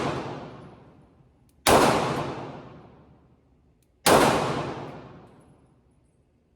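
Glock 19 Gen 5 9mm pistol fired in slow, aimed shots: two shots about two and a half seconds apart, each with a long echoing decay, and the tail of an earlier shot fading at the start.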